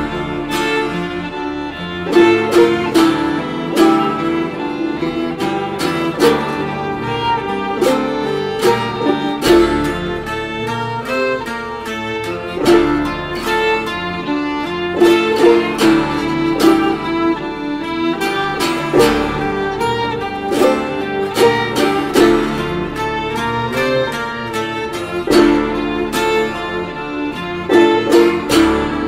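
Acoustic folk-style instrumental music: a plucked string instrument picking a quick, steady run of notes over held, sustained tones.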